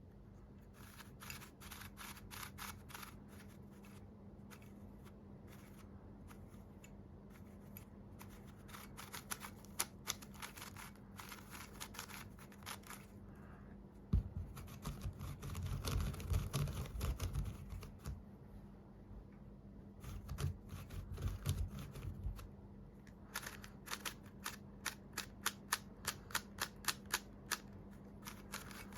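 Runs of quick clicks and clacks from a YJ YuHu V2 M magnetic 3x3 speedcube being turned. Dull handling thumps come in the middle.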